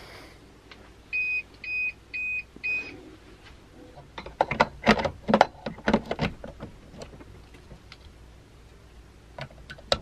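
Battery backup (UPS) beeping four times, about half a second apart, the alert such a unit gives when it is running on battery. This is followed by a quick run of plastic clicks and knocks as a power plug is handled at a wall outlet.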